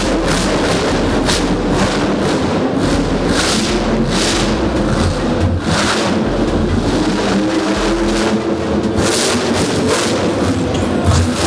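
Monster truck engine revving hard and rising and falling with the throttle as the truck jumps the dirt ramps, with music playing loudly over it.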